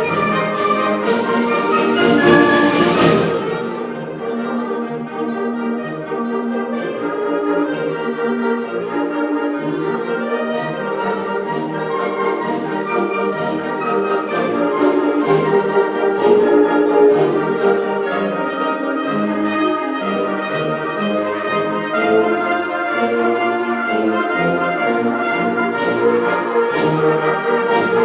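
Orchestral music led by brass, with held chords and percussion crashes in the first few seconds and again near the end.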